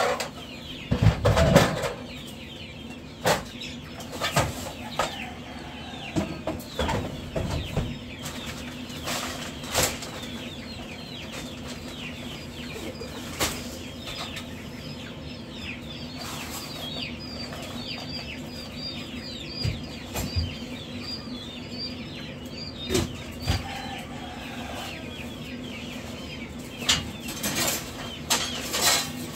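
Many chicks in brooder cages peeping at once, a dense chorus of short falling chirps. Scattered sharp taps and knocks come through it, most near the start and near the end, over a steady low hum.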